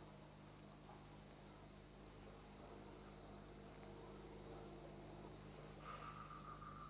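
Faint cricket chirping at night: short high chirps about three every two seconds, over a low steady hum. A steady, higher-pitched tone joins about six seconds in.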